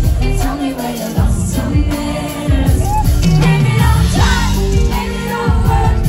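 Live pop music: a woman singing into a microphone over a band of drums, electric guitar and strong bass, played through the stage PA.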